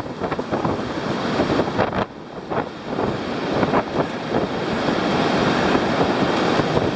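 Steady rush of surf with wind buffeting the microphone, in irregular gusts that grow louder toward the end.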